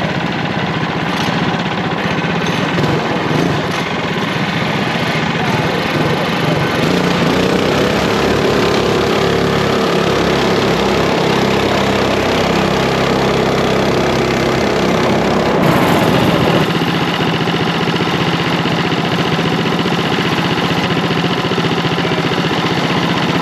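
Small single-cylinder mini bike engines running, their pitch rising and falling as they rev.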